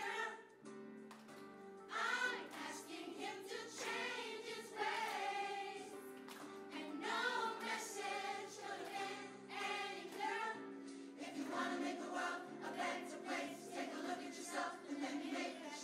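A school choir of children singing a song together, with long held notes.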